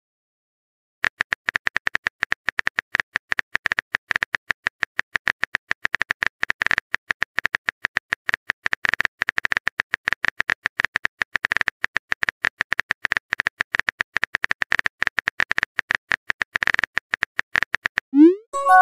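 Phone-keyboard typing clicks tapping rapidly, several a second, starting about a second in as a long text message is typed out. Near the end a short rising swoop and chime sound as the message is sent.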